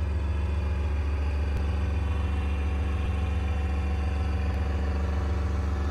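Diesel engine of a Gepard self-propelled anti-aircraft gun running steadily at idle, a low, even hum with no change in speed.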